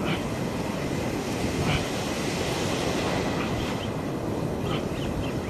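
Surf breaking and washing around the wading angler: a steady heavy rush of water, with a few short faint sharper sounds on top.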